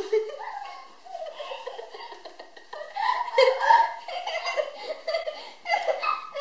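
Young girls giggling and laughing, in uneven bursts that get louder about halfway through.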